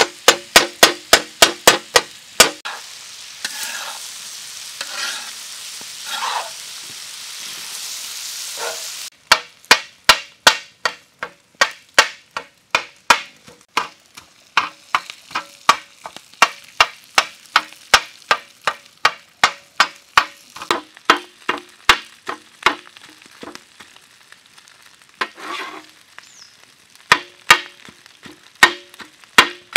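Flat steel spatula chopping cooked mutton on a large iron tawa, striking the pan about two to three times a second, each strike ringing. A few seconds in, the chopping stops for several seconds of stirring and sizzling, then starts again.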